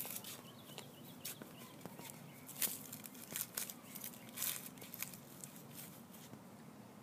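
A hand trowel digging into dry soil: irregular scrapes and crunches of dirt, dying away near the end.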